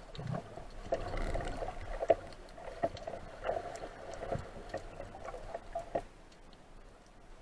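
Underwater sound through a camera housing: irregular knocks and clicks, some sharp, with a murky hum underneath.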